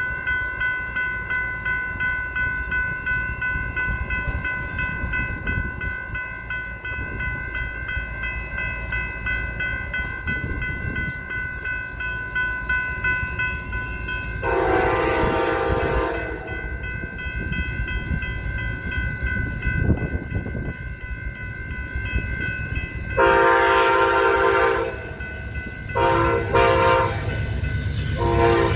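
A railroad crossing bell rings rapidly and steadily, stopping about halfway, over the low rumble of a passing train. A multi-chime locomotive horn blows a long blast about halfway through, then a further run of long and short blasts near the end.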